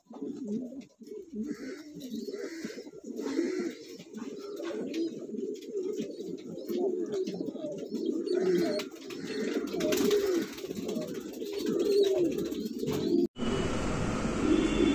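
Domestic pigeons cooing: repeated low, rising-and-falling coos from several birds, overlapping one another. Near the end they cut off abruptly and a steady noisy background takes over.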